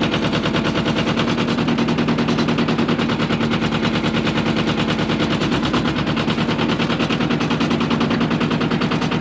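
Yanmar YM1700 22-horsepower diesel tractor engine running, a rapid, even diesel knock with a steady low hum underneath.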